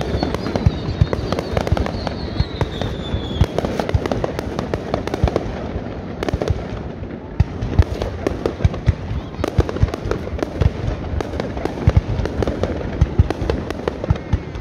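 Aerial fireworks display: a dense, irregular crackle of bangs and pops. A high whistle falls slowly in pitch during the first three seconds or so.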